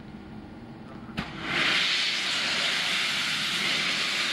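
Steam locomotive's cylinder drain cocks blowing off steam: after a short knock about a second in, a loud, steady hiss starts suddenly and keeps going.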